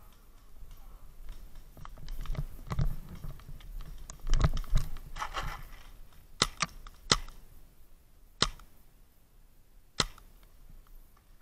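Paintball markers firing: a few sharp single pops spaced a second or so apart in the second half. Before them, a few seconds of rustling and dull thumps from movement.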